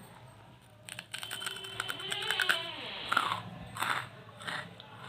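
A person biting and chewing charcoal: crackly crunching starts about a second in and is densest for about two seconds, then gives way to a few separate crunches.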